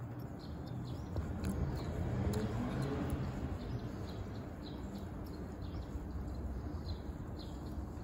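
Faint, short, high bird chirps repeating every half second or so, over a steady low rumble.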